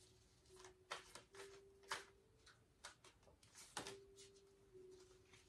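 Faint rustling and tapping of tarot cards being handled by hand, with three slightly louder ones about one, two and nearly four seconds in, over a faint steady hum.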